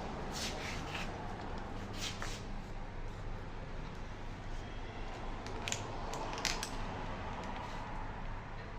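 Scattered light metallic clicks and clinks of steering-rack parts being handled as its cover is fitted, over a steady low hum.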